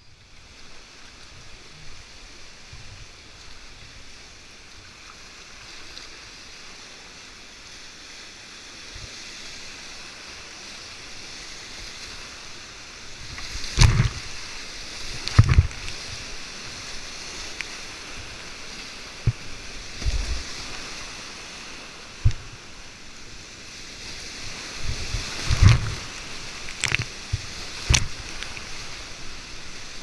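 Whitewater rapids rushing around a kayak at high water, the rush building as the boat runs deeper into the cascade. Sharp splashes and knocks from waves and the paddle hitting the boat and camera come about halfway through and again several times near the end.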